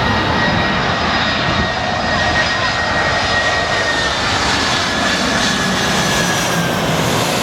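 Boeing 747 jet engines passing low on landing approach: a loud, steady rumble with a high turbine whine that slides slightly lower in pitch.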